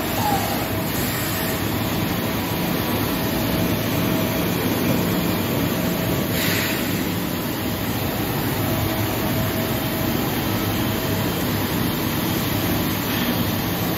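DMG Mori NTX2000 turn-mill machining center running with coolant spraying inside its enclosure: a steady wash of noise with a faint high whine that comes and goes.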